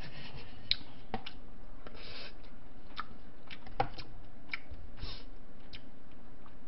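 Tableware being handled while eating: a few scattered light clicks and soft rustles from a spoon, paper cups and a bowl being picked up and set down, over a steady hiss.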